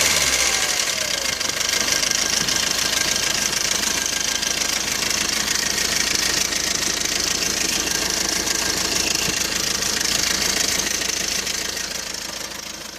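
Fiat Doblò 1.3 JTD diesel engine running with its timing chain knocking, a fast clatter over the engine's run. The knock is the sign of a timing chain kit that is due for replacement. The sound fades near the end.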